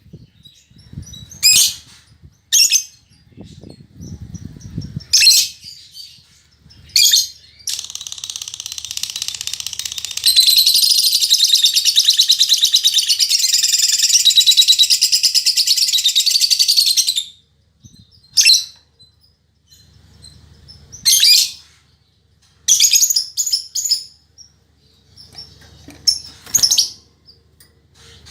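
Female lovebird calling: short shrill chirps every second or two, then a long unbroken run of rapid, high chattering song lasting about nine seconds, then more short chirps.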